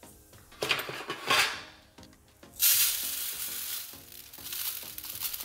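Small desiccant beads from a BMW air suspension compressor's air dryer poured out of the canister and scattering onto a metal tray, in two spells: a short pour about a second in and a longer one from about two and a half seconds on. The air dryer is full of water.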